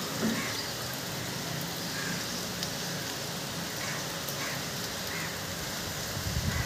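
Rain falling steadily on clay-tiled roofs and trees, an even hiss.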